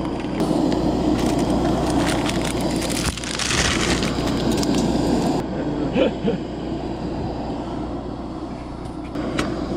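Crinkling and crackling of an instant-noodle packet as a dry noodle block is shaken into a pan of boiling broth on a propane camp stove. It is busiest in the first half and settles to a quieter crackle after about five seconds.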